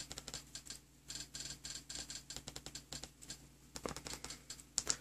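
Rapid clicking of buttons being pressed on a handheld remote, stepping through a TV channel list, with two louder single clicks near the end.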